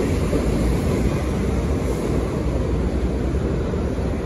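New York City Subway R62-series train pulling out of an elevated station: a steady low rumble of the cars running on the elevated track as they move away.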